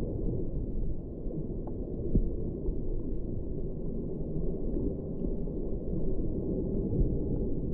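Underwater ambience through a GoPro's waterproof housing: a steady, muffled low rumble of moving seawater, with faint scattered ticks.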